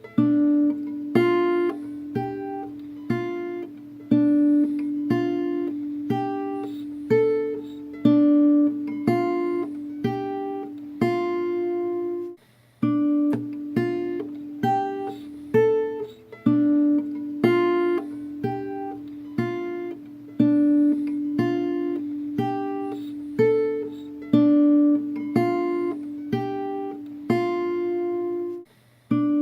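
Background music: a plucked acoustic guitar playing a repeating pattern of single notes over a held low note, breaking off briefly twice.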